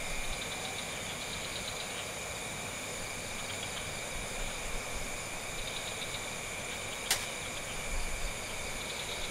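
Steady background hiss with faint high steady tones and occasional faint rapid pulsing, and a single sharp click about seven seconds in.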